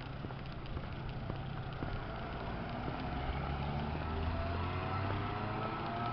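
A car driving through a street intersection, its engine pitch climbing as it speeds up over the second half.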